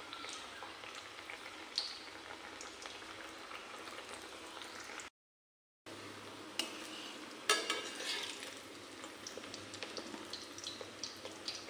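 Pieces of semolina dough deep-frying in hot oil in a metal kadai, a steady sizzle with small crackles. The sound cuts out for under a second about five seconds in. Soon after, a few sharper clicks come from a metal slotted spoon touching the pan as the pieces are turned.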